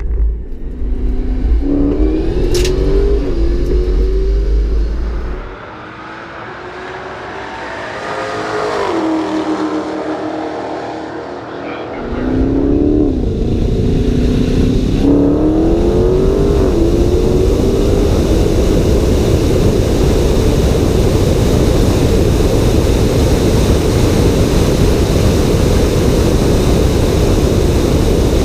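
Cars accelerating hard in a drag-strip roll race. A motor's pitch climbs in steps twice, with a quieter, falling stretch between, then gives way to loud, steady rushing wind and road noise at speed.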